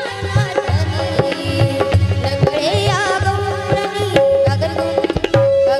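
Marathi gavlan folk song: tabla playing a steady rhythm under a girl's singing voice, with a held accompanying note throughout.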